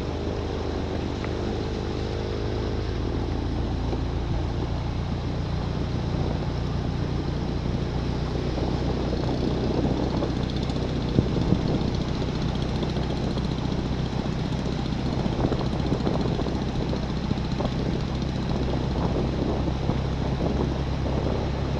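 An engine running steadily at an even, low hum, over a haze of background noise.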